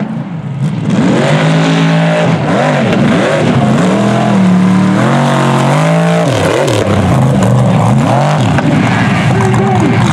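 Mega truck engine revving hard in repeated surges as it drives the mud bog course, its pitch climbing and falling every second or so.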